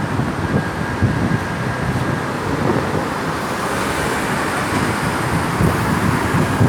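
Steady road traffic noise: motor vehicles running along a street.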